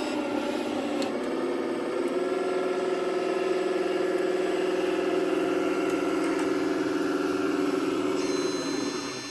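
Radio-controlled construction model running: a steady motor-and-gearbox whine that stops shortly before the end.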